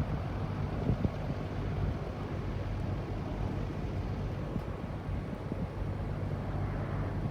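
Bell 205 helicopter's single turbine and two-blade rotor as a steady low drone, with wind buffeting the microphone.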